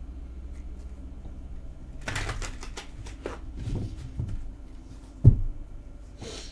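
Tarot cards being handled: a run of quick papery clicks and rustles starting about two seconds in, a sharp thump a little past five seconds, and a short hiss near the end.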